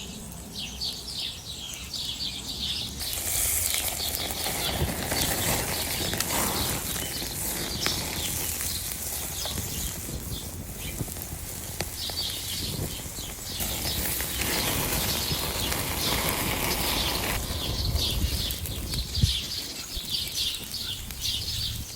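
Small birds chirping in quick repeated notes over a steady rustling hiss, which grows brighter and louder twice, for a few seconds each time.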